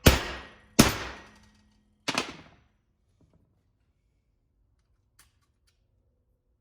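Three sharp hammer taps on steel U-joint caps in a driveshaft yoke, each ringing briefly, seating the caps so the copper retaining clips set.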